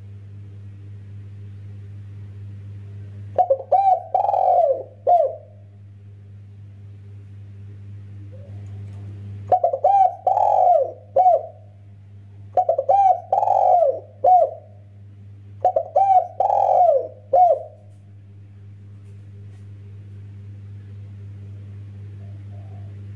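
Spotted dove (tekukur) cooing: four phrases of several rapid coo notes each, a few seconds apart, over a steady low hum.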